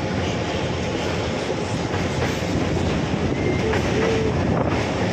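Kuranda Scenic Railway train with old timber carriages running along the track: a steady rumble and rattle of wheels on rail, with a short faint squeal about four seconds in.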